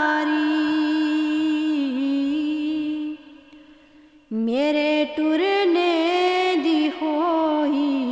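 A woman singing a Punjabi devotional shabad, drawing out long held notes with sliding melodic turns. She breaks off for about a second a little past three seconds in, then comes back in and sustains the line.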